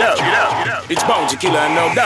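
Pop song playing, in a breakdown with the bass and drums dropped out: sliding, pitch-bending lines over a steady held tone.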